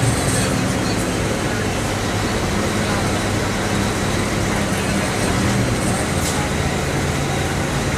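Mercedes-Benz O-500MA articulated bus with an OM 457 LA turbocharged, intercooled inline-six diesel running steadily, its engine hum heard over road noise.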